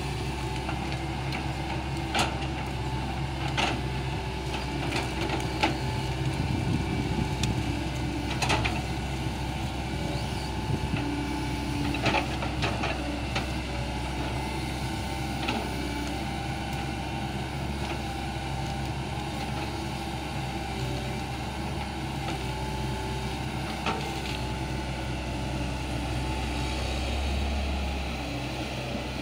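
Hitachi crawler excavator's diesel engine running steadily as it works its hydraulic grapple, with scattered sharp clacks while the grapple handles cut sugar cane. The engine swells slightly a little before the end.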